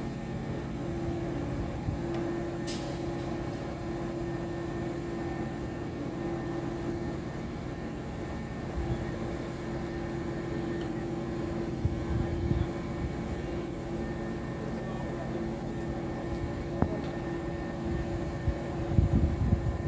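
Heavy construction machinery running steadily, a constant drone with a steady hum over low rumble. A single short click about three seconds in, and gusts of wind on the microphone near the end.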